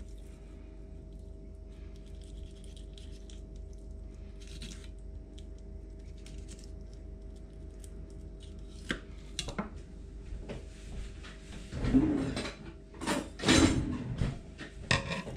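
Fillet knife slicing along the backbone of a trout tail section on a wooden cutting board: soft scraping, then a few clicks and several louder knocks on the board over the last few seconds as the knife and fish are set down. A steady low hum runs underneath.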